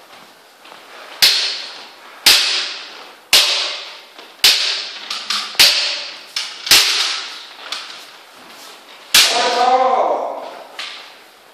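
Kendo sparring: sharp cracks of bamboo shinai strikes and stamping feet on a wooden floor, coming about a second apart and echoing in the hall. A player's kiai shout about nine seconds in.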